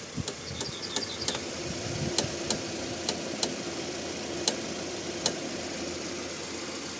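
A Kia Rio X engine runs steadily while the front wheel turns and the steering is worked, and sharp irregular knocks come from the front left suspension strut about once or twice a second. The owner has ruled out the strut mount bearing, ball joint, tie rod end, anti-roll bar and CV joint, and suspects something inside the strut: the shock absorber or the spring.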